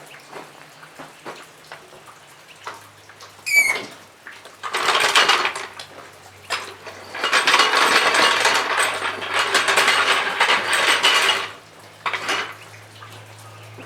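Metal tools and hardware clattering and clinking, in two loud stretches, the second lasting about four seconds. There is a short squeak just before the first.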